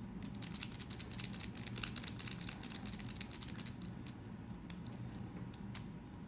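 A paperclip raking the serrated security pins of a Commando padlock, with a tension tool in the keyway: rapid light clicking and scraping, thinning out over the last couple of seconds. The pins have partly set and the lock is nearly open.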